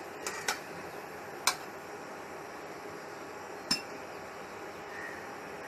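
Metal spatula clinking against a non-stick kadai as a bay leaf and dried red chilli are stirred in a little hot oil: four short sharp taps, the last about three and a half seconds in, over a steady faint hiss.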